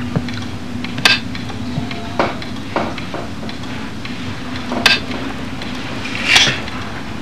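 A handful of sharp clinks and knocks a second or two apart, from a coat hanger on a wall hook as a coat is taken down, over a steady low hum.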